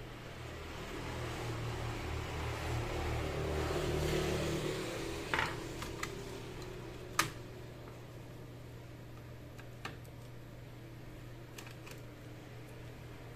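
Screwdriver work and handling on an opened laptop chassis while its motherboard screws are taken out: a soft scraping rustle for the first few seconds, then a handful of sharp clicks and taps of the screwdriver and small screws on metal and plastic, over a steady low hum.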